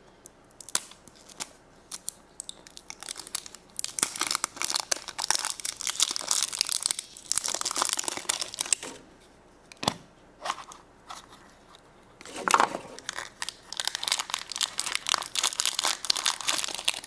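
Wrapper of a Frozen surprise egg crinkling and tearing as it is unwrapped by hand, in spells of crackly rustling with short pauses and a single sharp click partway through.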